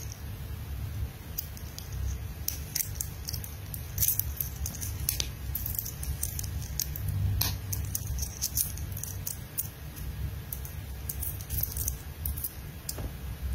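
Scattered light clicks and clinks of a vintage Rado DiaStar watch's metal link bracelet and case being turned over in the fingers, over a low steady rumble of handling noise.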